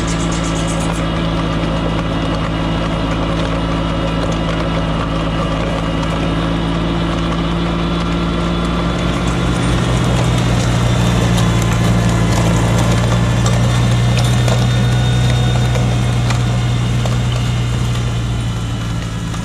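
Kubota LX2610 compact tractor's three-cylinder diesel engine running steadily. About nine seconds in its note shifts lower and grows louder, then eases off near the end.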